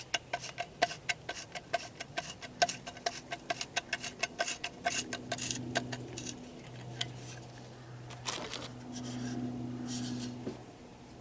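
Ratchet clicking in quick, even strokes while quarter-inch cap bolts are driven into a lead pot's cast-iron crucible, with a few scattered metal clicks later. A low steady hum comes in about halfway and stops shortly before the end.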